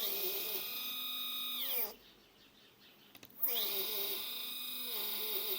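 Two stepper motors wired in parallel on one driver, stepping at a feed rate of 3000: a loud, odd whine of several steady tones. It rises in pitch as they speed up, falls as they slow, and stops just under two seconds in. It starts again about a second and a half later. This is the weird noise these motors make when run in parallel.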